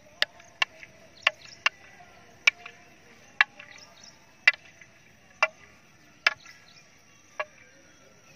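Two long wooden fighting staffs clacking together in sparring: about ten sharp, separate clacks at uneven intervals, about one a second.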